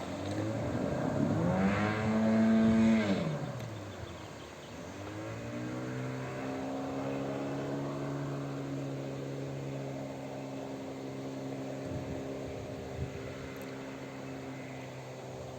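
Boat outboard motor revving up, easing off, then picking up again and holding a steady speed.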